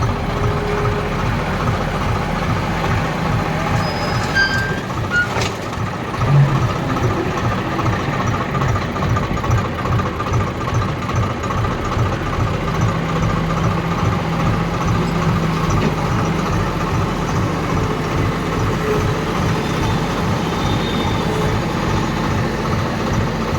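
Diesel engine of a Case 770 backhoe loader running steadily with a pulsing low rumble. There is a brief sharp clank about five seconds in and a louder knock about a second later.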